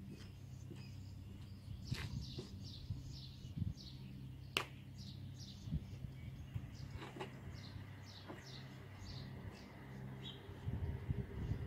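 Birds chirping in quick, repeated short notes, faint, over a low steady hum, with a few sharp knocks scattered through and a cluster of low thumps near the end.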